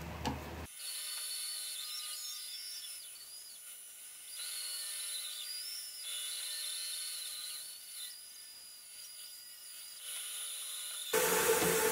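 Bandsaw cutting through a snakewood log: a thin, high whine that wavers in pitch as the wood is fed through. A short snap comes right at the start, and a much louder burst of noise near the end.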